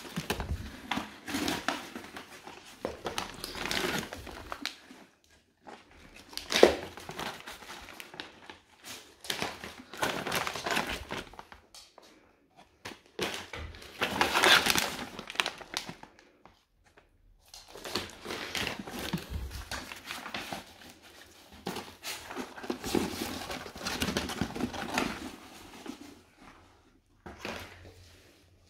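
Paper wrapping and plastic packaging crinkling and rustling as items are handled and pulled out of a cardboard box, in irregular stretches with short pauses between them.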